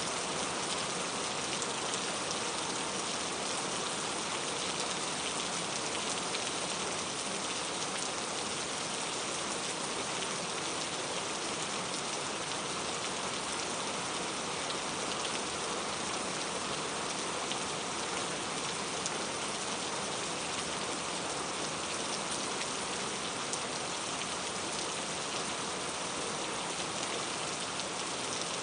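Steady rain falling, an even hiss of rain on surfaces with scattered individual drops ticking through it.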